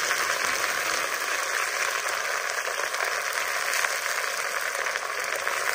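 Cabbage leaves frying in hot oil in a wok: a steady, even sizzle.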